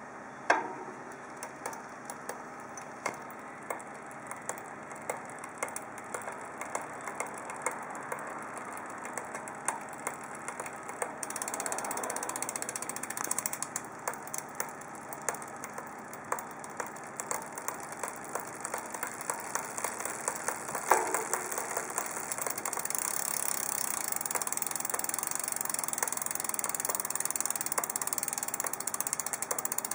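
Trek Domane 4.5 road bike drivetrain running, with a sharp knocking click repeating a little more than once a second over a steady whirr. It is the abnormal knock, 'kotsu-kotsu', that shows up around sixth gear.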